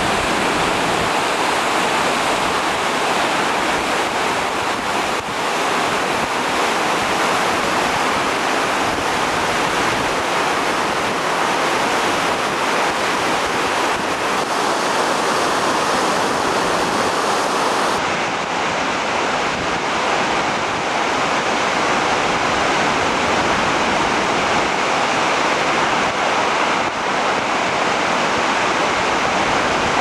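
Nevada Fall and the Merced River's whitewater below it: a loud, steady rush of falling and tumbling water.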